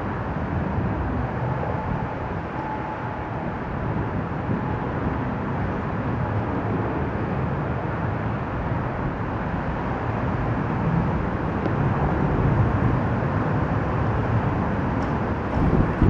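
Strong wind buffeting the microphone in a steady, gusting rush, over the distant noise of an Airbus A320's jet engines on final approach.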